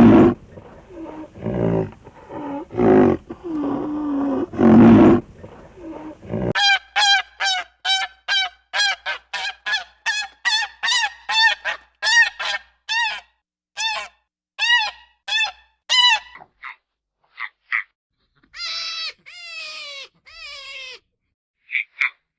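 Geese honking in a fast run of short calls, about two a second, thinning to scattered honks near the end. The first six seconds hold several loud, low, harsh calls from another animal.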